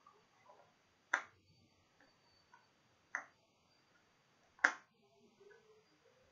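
Three sharp plastic clicks, a second or two apart with the last the loudest: a green snap-on lid being pressed onto a small clear plastic deli cup.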